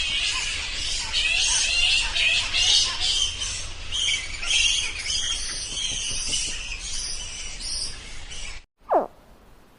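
Dense chorus of high-pitched animal chirps and calls, like a wild bird or insect chorus, which cuts off abruptly about nine seconds in. One short, sharply falling call follows near the end.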